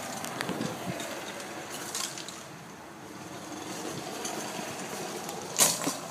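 Golf cart running on a cart path, a steady mechanical noise with a few clicks, and one sharp, loud knock near the end.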